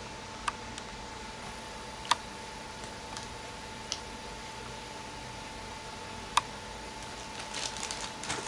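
Steady hiss with a faint steady whine under a few sharp single clicks, as a sealed plastic toy bag is handled; plastic crinkling starts near the end as the bag is moved.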